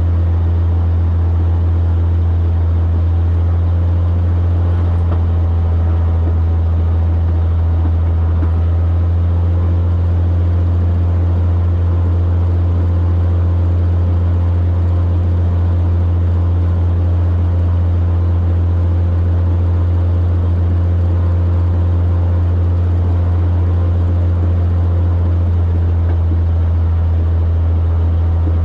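Cirrus SR22's six-cylinder Continental piston engine and propeller droning steadily, heard from inside the cabin, with no clear knocks standing out.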